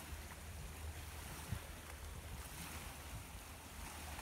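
Wind buffeting the microphone as a steady low rumble, with an even hiss behind it and a single brief thump about one and a half seconds in.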